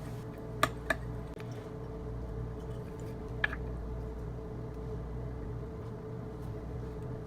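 Steady low hum in a kitchen with three light clicks of utensils or containers being handled, two close together near the start and one about three and a half seconds in.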